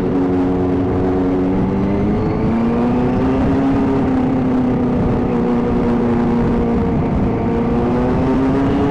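Motorcycle engine running with a steady note that rises about two seconds in, holds, drops near seven seconds and climbs again near the end.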